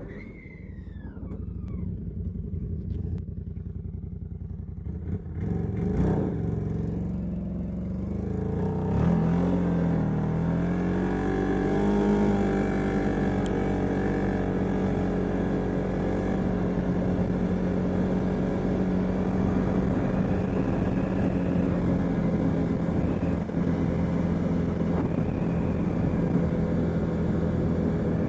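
CFMoto ATV engine, its exhaust leaking, running quietly at first, then picking up speed with a rising pitch about nine seconds in and running steadily after that.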